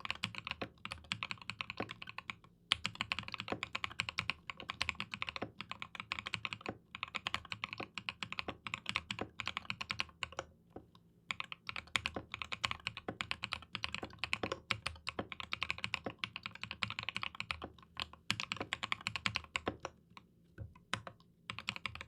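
Fast, continuous typing on a mechanical keyboard fitted with Mekanisk Ultramarine V2 linear switches on an aluminium plate: a dense stream of key clicks and bottom-out clacks, with brief pauses a few times.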